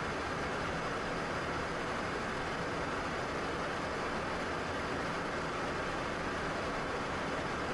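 Steady cockpit noise of a Cessna Citation business jet in the climb: an even rush of airflow and engine noise with a faint low hum beneath it.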